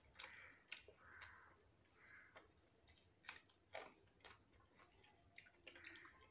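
Faint chewing of rice and chillies: soft wet mouth clicks and smacks, irregular and about half a second to a second apart.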